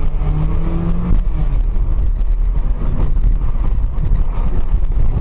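Car driving, heard from inside the cabin on a dashcam: a steady low rumble of engine and road noise. An engine hum rises slightly in the first second.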